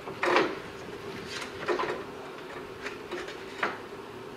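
Cooling-fan assembly of a 2007 Toyota Camry being worked down into place beside the radiator, its plastic shroud knocking and scraping against the parts around it: about five light, irregular knocks and clicks.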